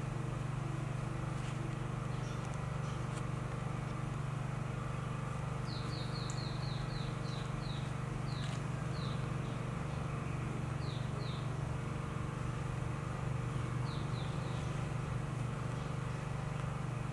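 Steady low hum throughout, with several quick runs of short, high, falling chirps from a small bird around the middle.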